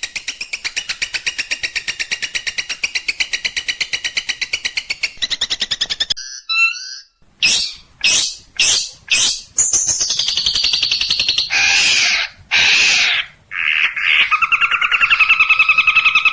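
Long-tailed shrike (cendet) song in a training recording: a fast chattering trill of about a dozen notes a second for six seconds, then, after a short break, several loud harsh calls and varied song ending in a buzzy trill.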